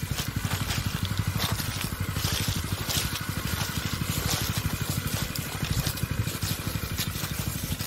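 Agricultural spraying robot's small engine running steadily with a rapid low pulsing, under the hiss of its spray mist as it drives along the orchard rows.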